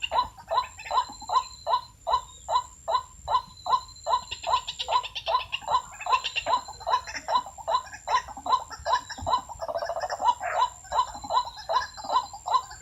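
White-breasted waterhen calls: a steady run of repeated notes, about three a second, with bursts of faster chattering notes about four seconds in and again near ten seconds, over a faint steady high tone.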